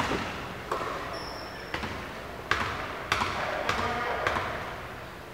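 Basketball being dribbled on a hardwood gym floor: a string of sharp bounces about every half second, each ringing on in the hall's echo, with a brief high squeak about a second in.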